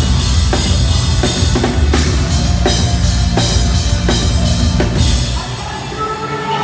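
Rock band playing live at full volume, the drum kit's kick and snare hits driving the beat with guitars and bass. About five seconds in the playing drops away, leaving a quieter lingering ring.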